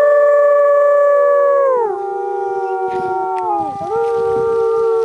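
Wolves howling in chorus: two or three long, overlapping howls held on steady pitches. They slide down in pitch about two seconds in, one drops away near four seconds, and a fresh howl rises straight after.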